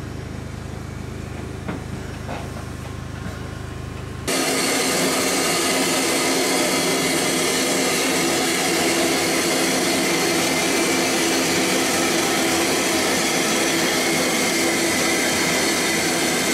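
Low steady hum, then about four seconds in a loud, even hiss of steam inside a steam locomotive's cab starts abruptly and holds steady.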